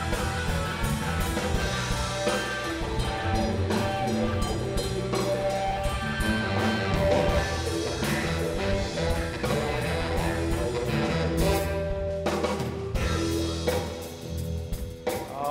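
Live blues band playing an instrumental passage: electric guitar over a drum kit keeping a steady beat, with a short break about three-quarters of the way through.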